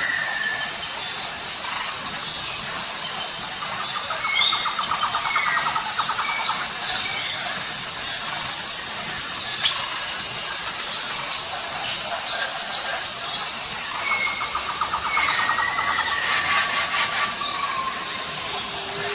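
Forest ambience: a steady, high-pitched insect drone that pulses evenly, with scattered short bird whistles and chirps. Twice, a rapid trill runs for a second or two, once about four seconds in and again near fifteen seconds.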